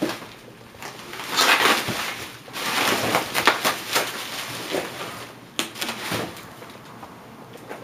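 Large cardboard box being opened and handled: scraping and rustling for a few seconds, then a couple of sharp knocks.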